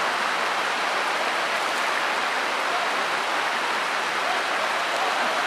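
Steady rain falling: an even hiss that does not change.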